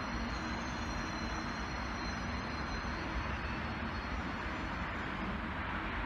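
Steady background rumble and hiss of a busy railway station yard and surrounding city traffic, with a faint high whine that fades out about halfway.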